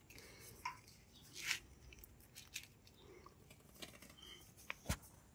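Faint, irregular clicks of keys pressed on a Lenovo ThinkPad X1 Carbon Gen 8 laptop keyboard, a few scattered taps with the sharpest one near the end.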